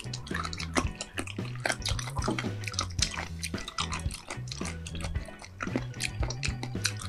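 Close-miked eating of raw seafood: wet, crunchy chewing with many crisp crackles in quick succession.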